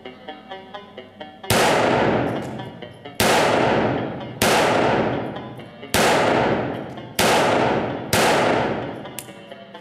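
Six shots from a CZ P09 Kadet .22 LR pistol, unevenly spaced about one to one and a half seconds apart, each with a long ringing tail. Background music with a steady beat runs underneath.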